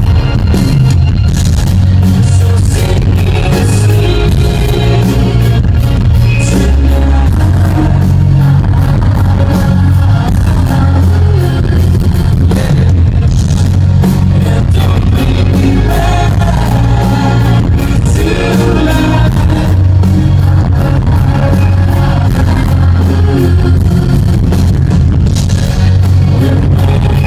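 Synth-pop band playing live at a concert, with heavy, boomy bass and a singing voice. The audience recording is loud and muddy.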